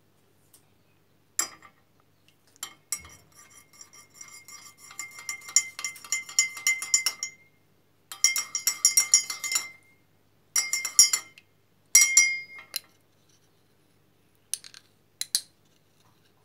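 Spoon stirring honey into hot tea in a mug, clinking rapidly against the sides with a ringing tone, in four bursts with short pauses between them.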